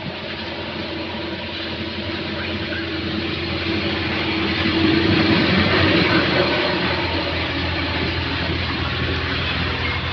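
A heavy diesel engine running steadily, growing a little louder about halfway through and then holding.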